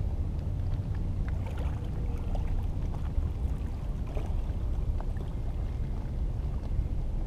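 Wind rumbling steadily on the microphone, with a few faint scattered clicks.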